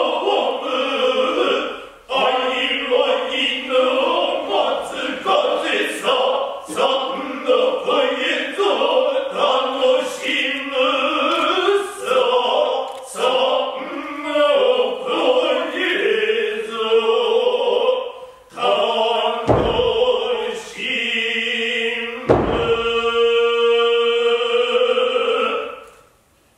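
Noh chorus (jiutai) of men chanting utai in unison, pitched lines sliding and breaking, ending on a long held note before cutting off. Near the end, two heavy thumps about three seconds apart.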